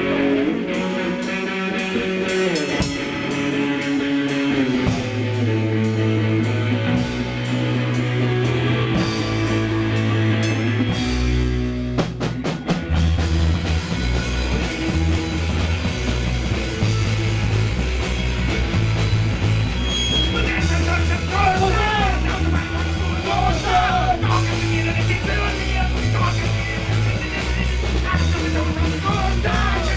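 Live rock band playing: electric guitars open with a riff and the bass joins a few seconds in. About twelve seconds in, a drum fill brings in the full band with drums, and a man starts singing about two-thirds of the way through.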